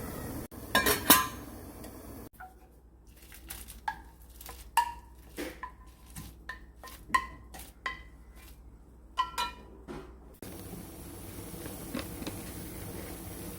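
Metal utensils clinking against dishes and pans: two loud knocks about a second in, then a run of short, ringing clinks, about one or two a second, that stops near the end.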